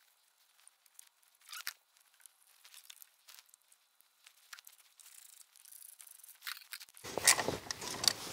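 Faint scattered clicks and light metallic ticks of a ratchet and socket working 10 mm bolts back onto a diesel engine, with louder handling noise starting near the end.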